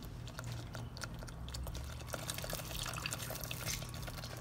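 Thick tomato paste simmering in a saucepan, bubbling with many small irregular pops and plops over a low steady hum. Near the end, lemon juice is squeezed and drips into the pot.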